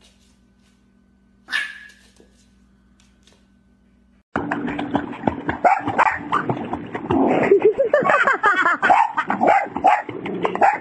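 One short, high, sharp sound about a second and a half in. After a sudden cut about four seconds in, a dog barks and yelps excitedly over loud, continuous water splashing in a swimming pool.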